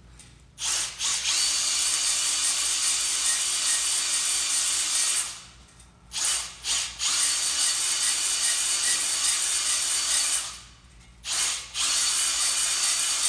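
Cordless drill spinning a ball hone in the oiled cylinder bores of a Jaguar E-Type straight-six block, a steady motor whine with the abrasive balls scrubbing the bore walls to lay a crosshatch. It runs in three long bursts, each started with a quick blip of the trigger, with short pauses between bores.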